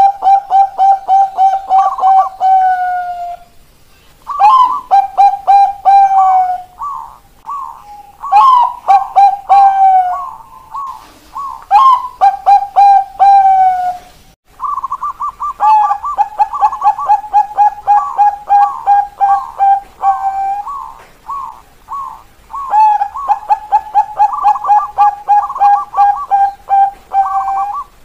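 Zebra dove song, Bangkok perkutut strain: the rapid 'keok kok kok kok' cooing. It comes in repeated phrases a few seconds long, each opening on a higher note and running into a fast string of short, even coos, with brief pauses between phrases.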